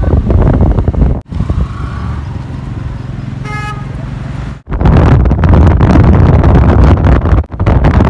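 Wind buffeting the microphone over a moving motorcycle's engine, in several short clips with abrupt cuts. In a quieter stretch in the middle the engine runs with a steady hum, and a short horn toot sounds about three and a half seconds in.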